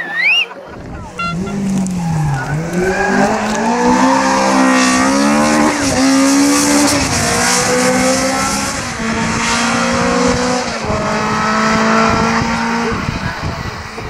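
Rally car engine revving hard as it drives past, its pitch dropping and climbing again several times through gear changes.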